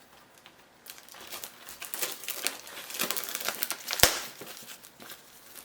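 Plastic shrink wrap crinkling and tearing as a sealed booster display box is unwrapped by hand, starting about a second in, with one sharp snap about four seconds in.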